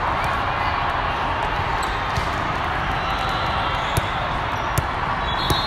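A volleyball bounced on the court floor a few times, three sharp taps about three-quarters of a second apart in the last couple of seconds. Underneath is the steady, echoing din of voices and play in a large sports hall.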